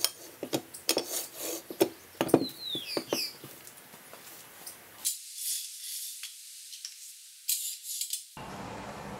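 Metal clicking and scraping as the steel sliding jaw of a homemade bar clamp is pushed along its square steel tube bar: a quick run of clicks and knocks over the first three seconds, then thinner, fainter scraping.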